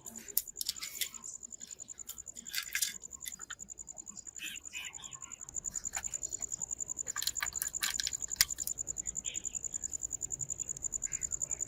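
Steady high-pitched insect chirping in a fast pulsing rhythm, with irregular clicks and scrapes over it, loudest in a cluster in the first few seconds and again near the middle.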